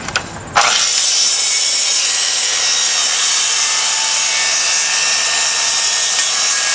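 Circular saw on a guide track cutting through wood, trimming off a thin strip of veneer. It starts abruptly about half a second in and runs at a steady level.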